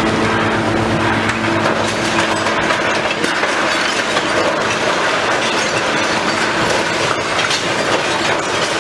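Demolition machinery at work: a diesel engine runs steadily under a continuous clatter and crackle of breaking, falling debris, with scattered sharp cracks.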